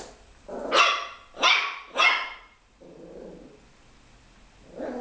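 Small puppy barking in high, sharp yaps: three quick barks about a second in, a quieter, lower sound in the middle, and another bark starting near the end.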